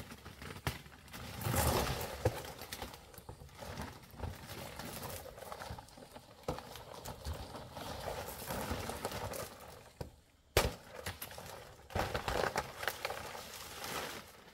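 Uneven rustling and crackling, with a few sharp knocks, the clearest about two seconds and about ten and a half seconds in.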